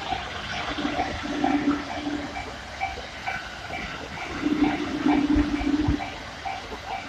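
Japanese level-crossing warning bell ringing in a steady rhythm, about two rings a second, over the rushing noise of passing trains. A lower hum swells in about a second in and again from about four and a half seconds in.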